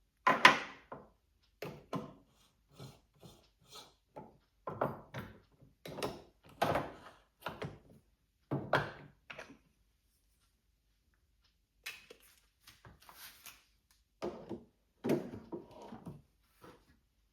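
Hard objects being handled while making espresso: a series of a dozen or so dull thunks and knocks, with a quiet pause in the middle and softer rustling after it.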